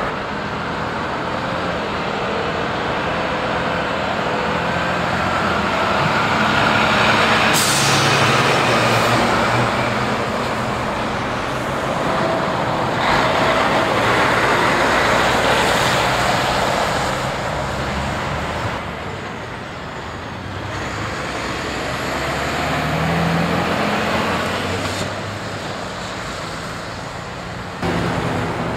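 Heavy diesel trucks driving past one after another, engines pulling, including a DAF tractor unit close by, swelling and fading as each passes. A short hiss of air brakes comes about a quarter of the way in.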